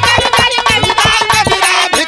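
Bhojpuri birha folk music between sung lines: a melody over quick, closely spaced drum strokes.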